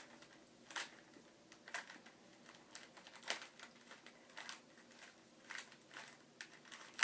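Rubik's Cube faces being turned by hand: a string of short plastic clicks and clacks at an irregular pace, roughly one or two a second.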